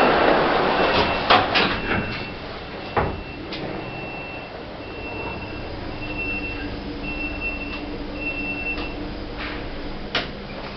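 Passenger lift doors sliding shut, with a high warning beep repeating about once a second. There are clicks early on and a knock about three seconds in as the doors close, and a low hum sets in about halfway.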